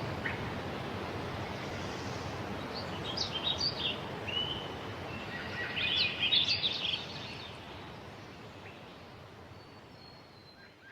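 Outdoor background hiss with birds chirping in two short bouts, about three and six seconds in, the whole slowly fading down toward the end.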